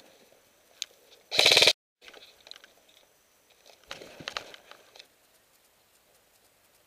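A short, loud, rapid rattling burst of about half a second, cut off abruptly, typical of an airsoft electric rifle firing a full-auto burst close to the microphone. It is followed about two seconds later by quieter clicks and rustling of gear.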